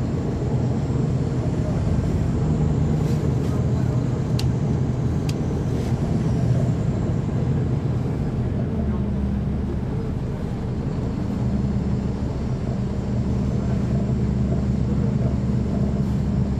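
Caterpillar C13 ACERT diesel engine of a NABI 40-SFW transit bus running, heard from the rear seats close to the engine. About nine seconds in, its low drone changes to a heavier, steadier hum as the engine's speed or load shifts.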